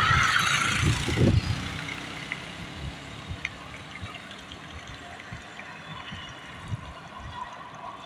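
Road noise of a ride on a wet road: tyres hissing over the wet surface, with wind buffeting the microphone hardest in the first second and a half, and a few low bumps after that.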